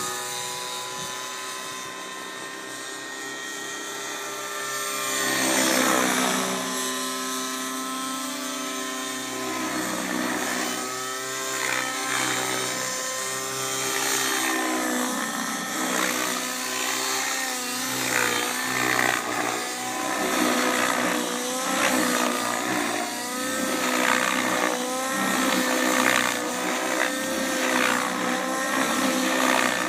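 Radio-controlled helicopter in aerobatic flight, its nitro engine and rotors whining steadily at first, then rising and falling in pitch again and again as it throttles and pitches through manoeuvres, more quickly in the second half.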